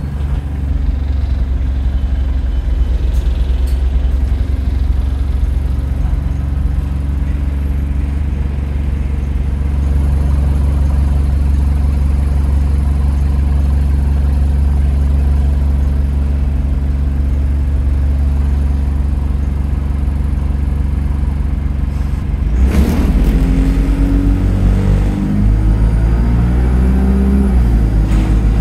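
London bus diesel engine idling with a steady low drone. About 23 seconds in there is a short hiss, then the engine revs up and its note rises as the bus pulls away.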